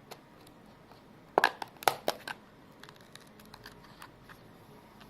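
Protein coffee packaging being opened by hand: a quick cluster of sharp crackles and snaps about a second and a half in, then lighter scattered ticks and rustles as the contents are handled.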